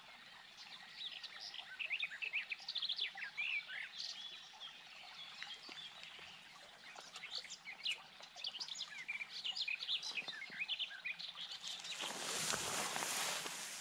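Songbirds chirping and singing, many short quick notes overlapping throughout. A broad rush of noise comes in over the last couple of seconds.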